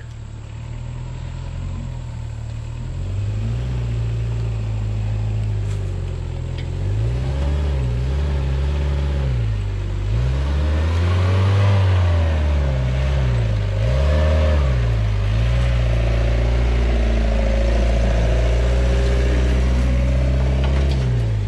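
A Mitsubishi Pajero 4x4's engine pulling it up a rutted dirt slope. The revs rise and fall several times in the middle as the driver works the throttle over the ruts, then the engine holds a loud, steady pull near the end.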